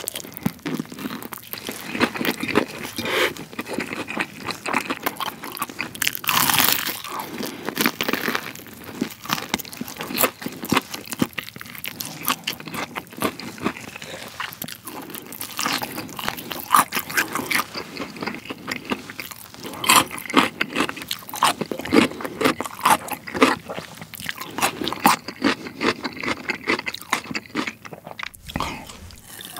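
Close-miked crunching and chewing of crispy BBQ Golden Olive fried chicken, with many sharp crackling bites into the battered crust, louder clusters of them about six seconds in and again in the second half.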